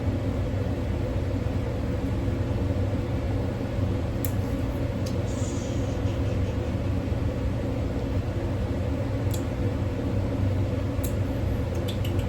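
Steady low electric hum of a running machine, such as a fan or air conditioner, with a few faint light clicks scattered through it.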